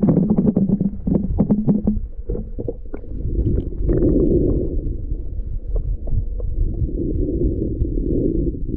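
Muffled underwater noise picked up by a camera held under the water: a steady low rumble of moving water with scattered short clicks and knocks, thickest in the first two seconds.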